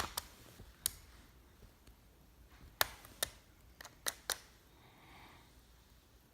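Sharp, irregular clicks and light taps, about eight of them over the first four seconds or so, with quiet room tone in between.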